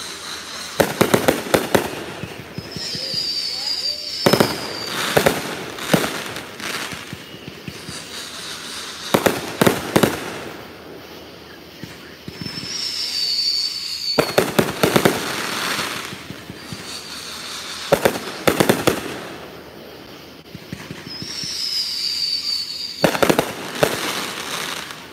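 Aerial fireworks going off in repeated volleys: clusters of sharp bangs and crackling bursts every few seconds. A short, high whistle that falls in pitch comes just before three of the volleys.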